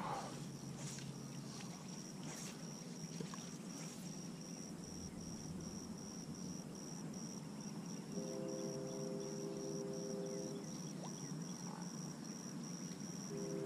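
Crickets chirping in a steady, even rhythm of about three high chirps a second. About eight seconds in, a steady chord of several low tones sounds for about two and a half seconds, and it starts again near the end.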